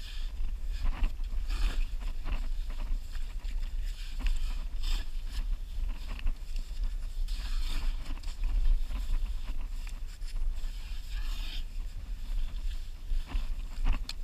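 Short shovel digging into wet, muddy sand: repeated irregular scraping and chopping strokes over a steady low rumble.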